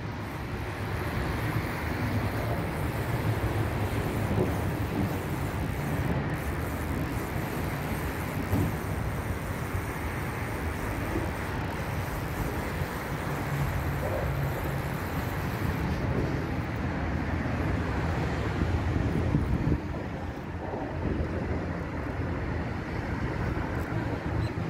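Steady traffic noise from the elevated highways overhead: a continuous, even wash of road noise with no distinct events.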